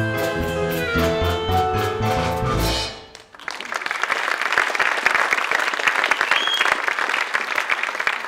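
The song's accompaniment plays its last bars and stops about three seconds in; then the audience applauds.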